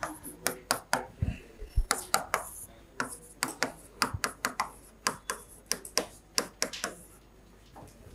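Chalk tapping and scratching on a chalkboard as an equation is written: a quick, uneven run of sharp taps with scratchy hiss between them, stopping about a second before the end.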